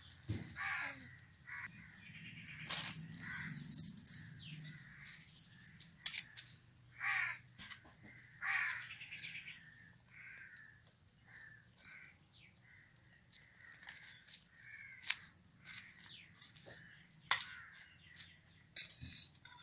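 Crows cawing over and over, many short harsh calls one after another, with a few sharp clicks between them.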